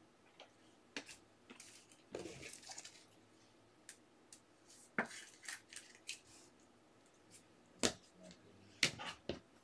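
Trading cards being handled on a desk: scattered light clicks and taps of cards and hard plastic card holders, with a few soft brushing sounds.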